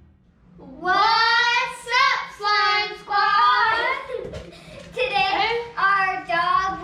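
A child singing in a high voice, drawn-out notes with bending pitch, starting about a second in.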